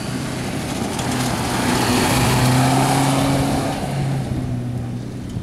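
Renault Duster rally car passing on a dirt stage: a steady engine note with road and gravel noise, growing louder to a peak about two and a half seconds in, then fading as it goes away.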